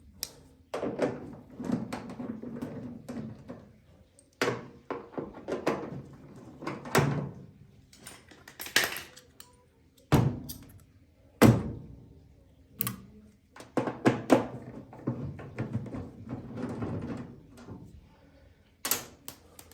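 A run of clunks and thuds, some with a short rattle after them, like doors or metal panels being opened, shifted and set down in a small room.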